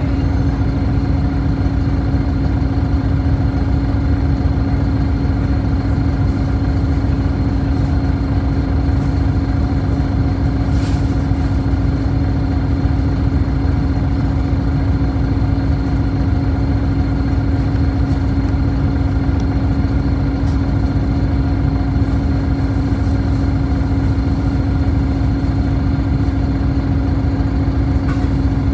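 City bus engine idling steadily, a constant low rumble with a steady hum.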